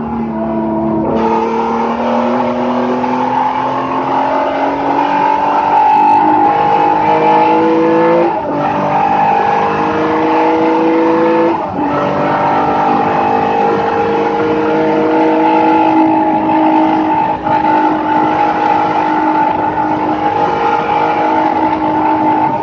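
Race car engine at full throttle, heard from inside the cockpit. The note climbs through the gears, with quick upshifts about eight and twelve seconds in, then holds high and fairly steady.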